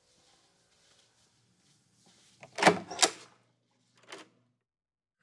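A door's handle and latch being worked as the door is pulled open: two sharp clacks about a third of a second apart, then a softer click about a second later.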